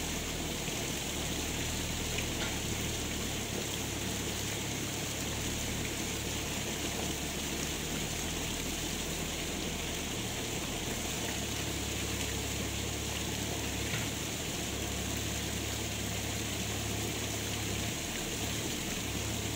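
Steady rushing noise of flowing water, with a low hum underneath that changes level a few times.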